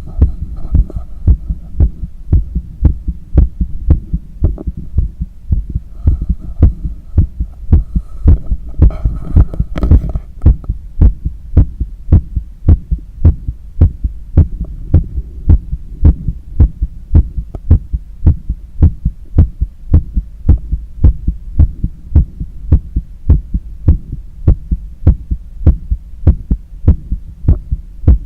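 Human heartbeat heard through a stethoscope on the chest: an evenly spaced run of low lub-dub beats over a steady low rumble. It is an athlete's heart during cool-down after a long run.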